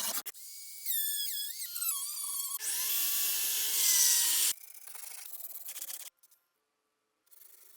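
A small power sanding tool working the rusty steel of a bayonet. First its motor whine wavers and falls in pitch, then a loud rasping rush of abrasive on metal lasts about two seconds, then quieter sanding, which stops about six seconds in.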